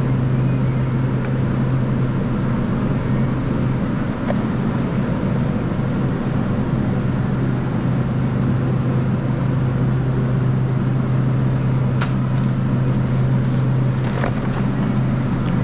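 Steady hum and rush of a walk-in cooler's refrigeration fans, holding one low pitch throughout. A few light taps of paper egg cartons being handled sound over it near the end.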